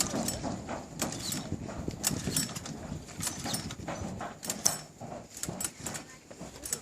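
Irregular knocks and splashes of water slapping against the hull of a small fibreglass boat under way, over a low rumble.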